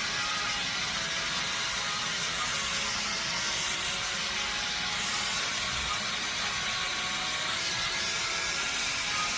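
Steady hiss of a gas brazing torch flame working on the evaporator's refrigerant copper lines.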